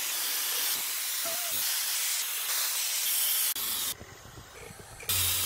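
Aerosol spray-paint can spraying in two bursts: a long hiss of about four seconds, then a brief pause, and a second burst starting about five seconds in.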